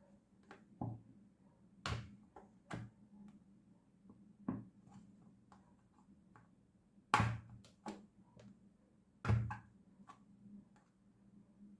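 Scattered knocks and clicks of kitchen items being handled and set down, with two louder thuds about seven and nine seconds in, over a faint low hum.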